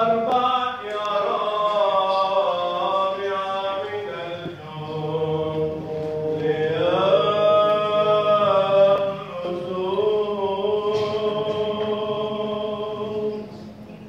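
A man's voice chanting in Orthodox liturgical style, long held notes sliding slowly between pitches, breaking off near the end.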